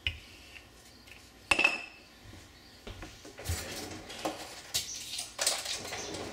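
Kitchen utensils being handled on a laminate countertop. About a second and a half in there is a sharp clack, most likely the wooden rolling pin being set down, followed from a few seconds in by rustling and scraping with small clinks.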